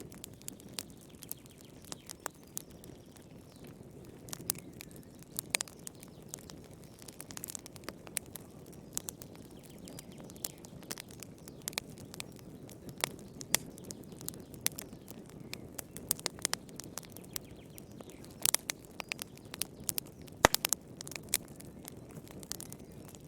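Wood fire crackling in a fireplace: irregular sharp pops and snaps over a steady low rumble of the flames, with a cluster of louder pops near the end.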